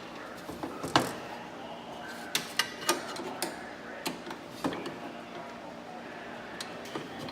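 Irregular sharp clicks and knocks of metal parts and hand tools being handled, the loudest knock about a second in and a quick run of them in the middle, over a low steady hum.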